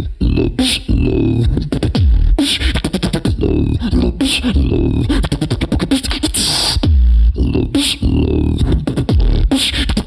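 Human beatboxing into a handheld microphone: deep bass sounds that slide down in pitch, sharp snare-like hits and quick clicks and hisses in a dense, fast rhythm.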